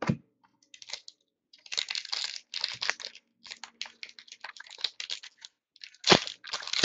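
Foil wrapper of a hockey trading-card pack being torn open and crinkled in short irregular crackling bursts, after a single thump at the start.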